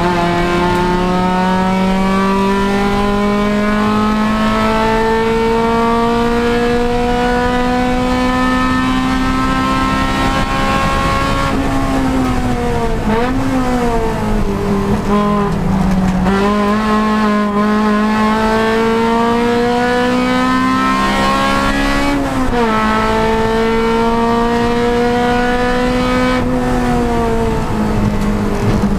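Honda Civic Si race car's four-cylinder engine under load, its pitch climbing slowly as it pulls through a gear. It drops with short wobbles about 12 seconds in, as the car slows for a corner, climbs again, then drops once more about 22 seconds in before pulling again.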